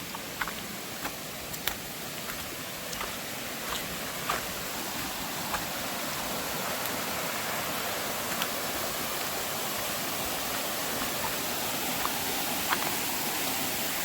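Rushing water of a mountain stream, a steady hiss that grows slowly louder, with scattered sharp clicks in the first few seconds.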